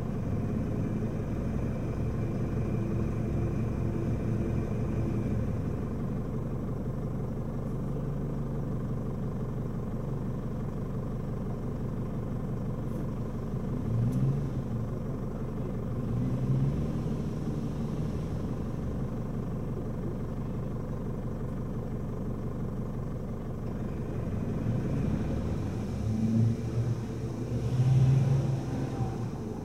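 Four-wheel-drive vehicle's engine running at low speed while crawling off-road, with brief surges of revs about halfway through and again near the end.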